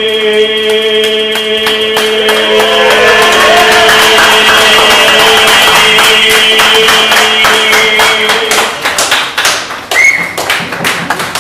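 A man singing a cappella holds one long note for about eight seconds as the closing note of his song, over a quick, steady beat of sharp taps. The note stops about eight and a half seconds in, and the taps carry on more unevenly after it.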